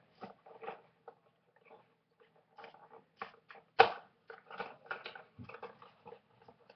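Rustling, crinkling and scraping of a blind-box vinyl figure's packaging being handled and opened by hand, in irregular short bursts, with one sharp knock about four seconds in.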